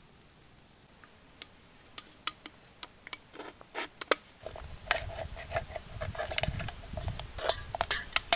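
Tin can being cut open with a pocket knife: sharp metal clicks and scrapes as the blade works around the rim, scattered at first and then coming thick and fast from about halfway through, with a low handling rumble.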